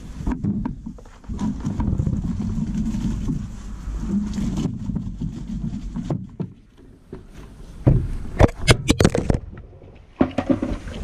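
Feed poured from a bucket into a wooden trough, a low rushing for several seconds. About eight seconds in comes a burst of close knocks and bumps from the camera being handled.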